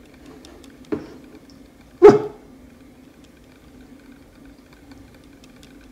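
A young dog barking up for attention: a softer short bark about a second in, then one loud, sharp bark about a second later.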